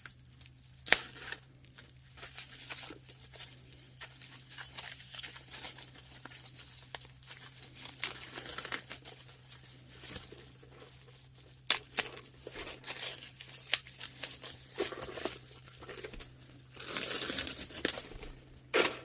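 Packaging wrapping being crinkled and torn while a handbag strap is unwrapped: on-and-off crackling with a few sharp snaps, busiest near the end.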